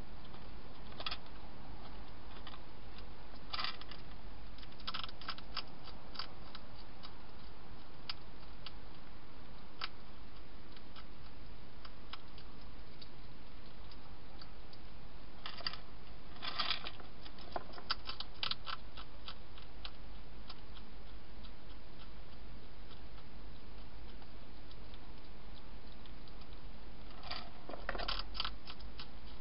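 Wild hedgehog crunching dry food pellets: scattered bursts of sharp clicking chews, the longest about halfway through and near the end, over a steady hiss.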